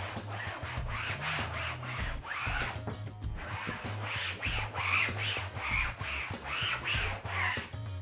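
Damp cloth rubbed back and forth over a wallpapered wall, about two strokes a second. It is wiping away rough spots, perhaps leftover adhesive, after removable wallpaper has been peeled off.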